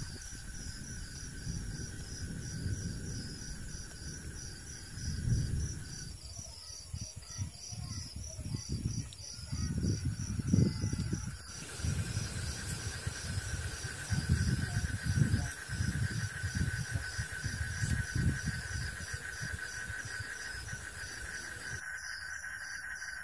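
Forest insects trilling and chirping steadily, one a continuous high trill and another a fast, evenly pulsed chirp. Irregular low rumbles and thumps come and go through the middle.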